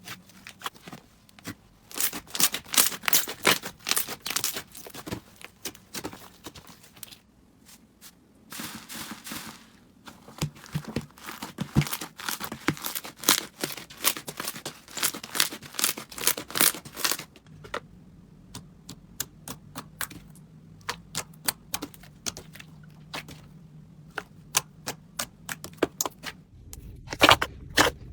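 Slime being squeezed and worked by hand, giving fast runs of crackling clicks and small pops. The clicking is dense for much of the time, then thins to scattered single clicks after the middle.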